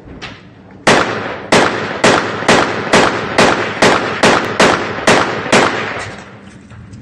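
Assault rifle firing about eleven single shots, roughly two a second and unevenly spaced, each shot trailing a short echo; the firing stops a little before six seconds in.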